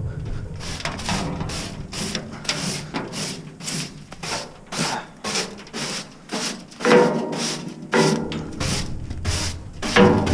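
Scraping and rattling of roof-tile rubble and dirt being cleared out of a livestock weighing scale, in quick irregular strokes.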